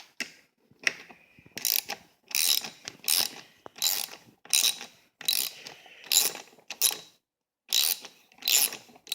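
Ratchet wrench clicking in about a dozen quick back-and-forth strokes, turning the bolt at the brake lever's pivot, with a short pause near the end.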